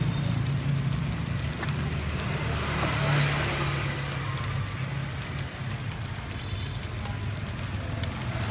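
Hot oil sizzling as fried sticky-rice cakes cook in a pan, with a few small clicks of handling, over a steady low engine hum.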